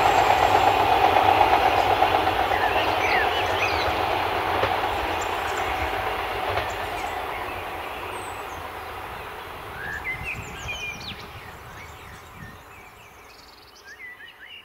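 Diesel multiple unit train running away along the track, its engine and wheel noise fading steadily. Short high bird chirps come in over it partway through and near the end.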